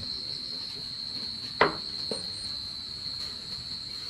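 Insects buzzing steadily at one high pitch. A sharp knock comes about a second and a half in, and a fainter one follows just after.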